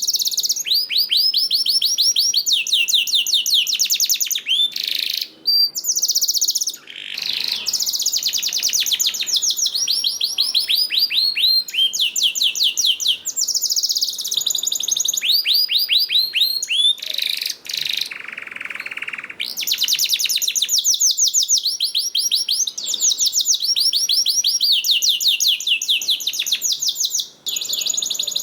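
Domestic canary singing a long, continuous song of rapid high-pitched trills, each made of fast repeated notes that sweep downward, with brief pauses between phrases. About two-thirds of the way through comes a short buzzy, rasping phrase.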